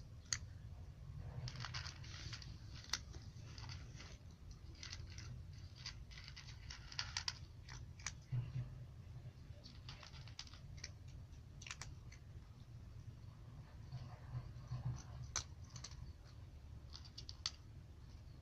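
Cat crunching dry kibble: irregular sharp crunches and crackles, several a second in clusters, over a faint low hum.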